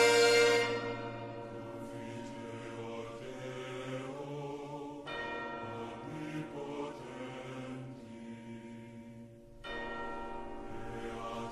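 A church bell tolling, with two strokes about four and a half seconds apart, over a low choir chant. A loud orchestral chord dies away in the first second.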